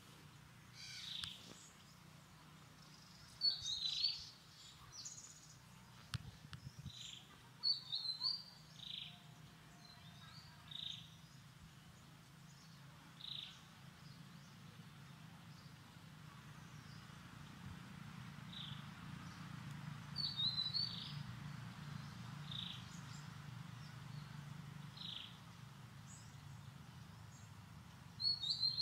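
Short, high chirping calls repeated every second or two, with a few louder clusters of chirps, over a low steady hum.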